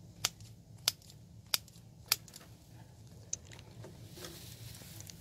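A row of four sharp clicks, about one every two-thirds of a second, then a fainter one; near the end, rustling footsteps through tall grass.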